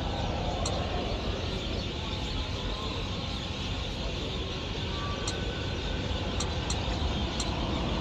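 Steady background rumble and hiss, with a few faint ticks scattered through it.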